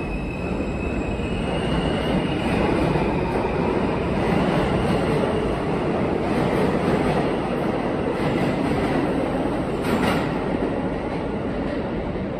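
New York City subway train pulling out of an underground station: a steady rumble of wheels on rail that builds and then eases as the train leaves. A motor whine rises in the first few seconds, and there is one sharp click about ten seconds in.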